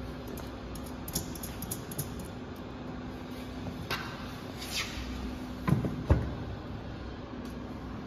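Metal waveguide-bench parts being handled as a coaxial cable connector is fitted to a waveguide detector mount: scattered light clicks and taps, then two sharp knocks close together about six seconds in, over a steady low hum.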